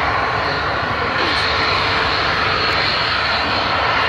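Fixed-wing aircraft engine running loud and steady, a dense roar with a high whine over it.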